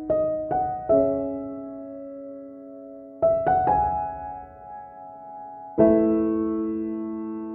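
Background music: slow, soft piano, notes and chords struck in small groups a few seconds apart and left to ring and fade.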